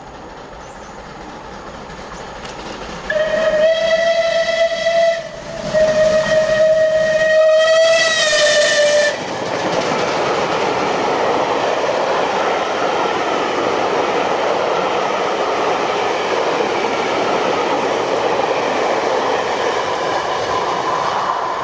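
LNER Peppercorn A1 Class 4-6-2 steam locomotive No 60163 Tornado approaching and passing through a station at speed. It sounds its whistle twice on one steady note, a short blast and then a longer one, then passes with a steady loud rush of wheels on rail and steam.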